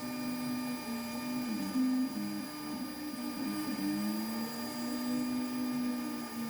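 Shop-built KRMx02 CNC router cutting the outline contour of a plywood ornament with a 1.5 mm end mill spinning at 18,000 RPM. The spindle gives a steady high whine, and the stepper motors hum underneath, their pitch sliding up and down as the machine follows the curves.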